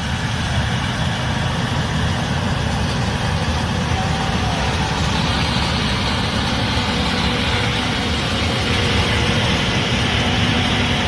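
Case IH 8250 Axial-Flow combine running steadily while harvesting corn: a low, heavy diesel engine rumble under a mechanical hiss that grows stronger about halfway through.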